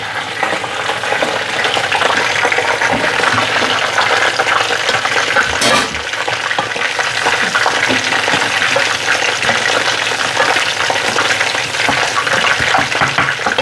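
Food frying in hot oil in a pan: a steady crackling sizzle full of fine pops, with a brief knock near the middle.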